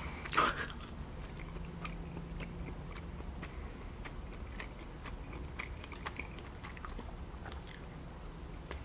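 A person chewing a soft, sweet dessert sushi roll close to the microphone: faint wet mouth clicks and smacks, several a second.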